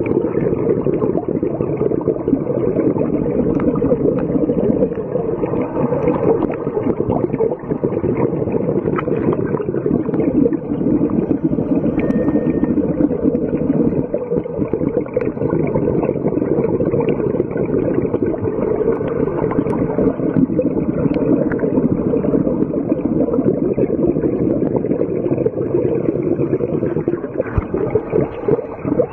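Steady, muffled underwater noise picked up by a camera in a dive housing: a constant low rush with no clear events in it.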